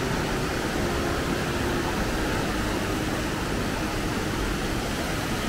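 Steady rushing of the Breitach river's water through its rocky gorge.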